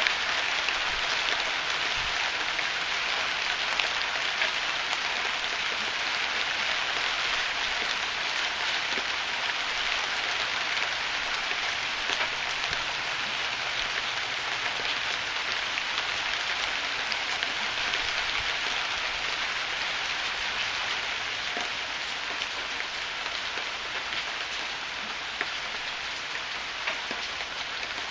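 Heavy rain falling steadily, a dense hiss of drops with scattered sharper drop ticks, easing slightly near the end.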